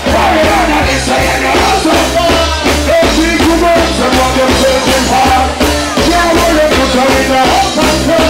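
Live reggae band playing: a heavy bass line and drum kit, with guitar and keyboards over it.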